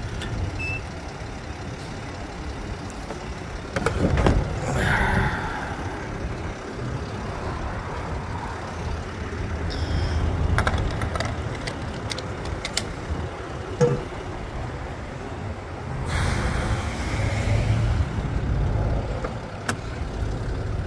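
Vehicle engine idling with a steady low rumble, broken by scattered knocks and clicks of handling.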